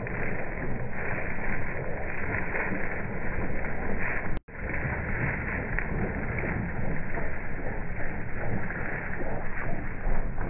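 J-3 Cub light aircraft's engine running at low power as it taxis on grass, a steady rumbling noise with wind on the microphone. The sound cuts out completely for a moment a little over four seconds in.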